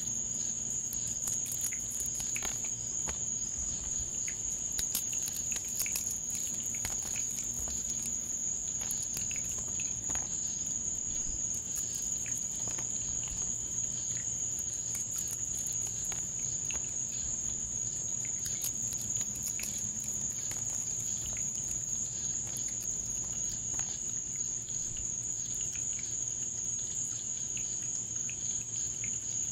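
Crickets chirping in a steady, high-pitched chorus, with scattered faint clicks throughout.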